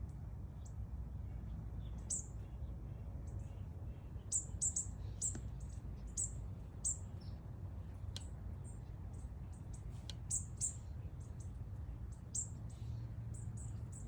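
Many small birds chirping in trees: short, high chirps coming irregularly, sometimes several in quick succession, over a steady low rumble.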